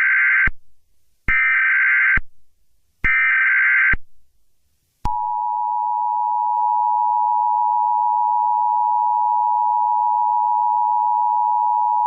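Emergency Alert System tones: three roughly one-second bursts of SAME header data tones, then, about five seconds in, the steady two-tone attention signal (853 and 960 Hz) begins and holds.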